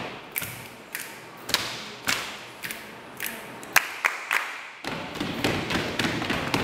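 A group of students doing body percussion in unison, clapping hands and slapping their thighs in a steady beat of about two strokes a second. About five seconds in, the strokes turn denser and more ragged.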